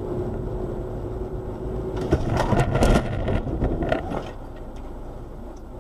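Road and engine noise inside a moving car, then about two seconds in a head-on crash: a loud burst of impacts and crunching as the car's front end and hood are crumpled, with another hard knock about a second later.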